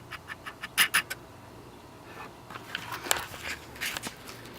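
A quick run of sharp clicks in the first second, then softer scraping and rustling: handling noise close to the microphone.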